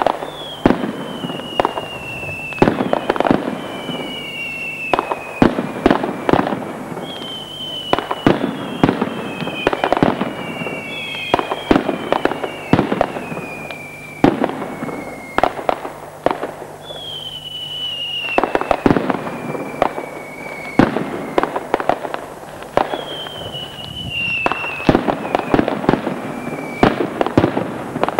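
Mascletà firecrackers going off in a dense, continuous barrage of loud bangs. Whistling fireworks cut through it again and again, each whistle falling in pitch over a second or two.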